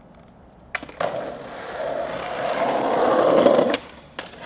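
Skateboard slapped down on pavement with a sharp clack, then its wheels rolling on asphalt, growing steadily louder. The rolling cuts off abruptly near the end as the board leaves the ground for a trick.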